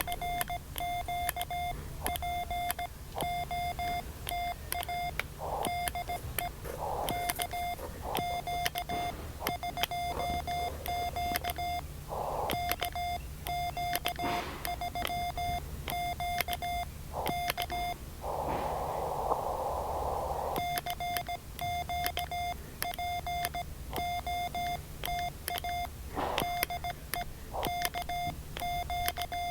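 Morse code (CW) sidetone from an amateur radio transceiver, a single steady beep keyed in dots and dashes, calling CQ twice. Between the calls the keying stops for about two seconds and a patch of hiss takes its place, with shorter patches of hiss here and there.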